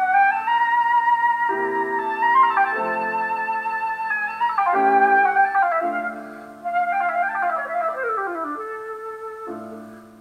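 Instrumental music: a flute-like melody over held chords that change every second or two, fading away near the end.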